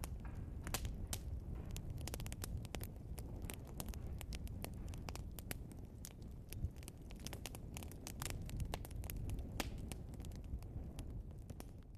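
Burning logs in a fireplace, crackling and popping with many sharp irregular snaps over a low, steady rumble of the fire.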